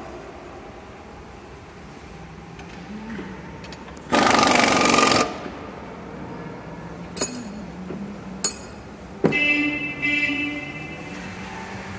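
Assembly-line air-tool noise. A loud, dense burst lasts about a second, about four seconds in. A few sharp clicks follow, then a second, shorter mechanical burst with a steady whine near the end, over a low steady workshop background.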